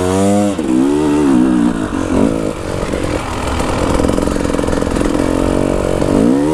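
KTM 300 TPI two-stroke enduro engine under hard throttle on a sand climb. It revs up and falls back a few times, holds high and steady for several seconds, then drops and revs up again near the end.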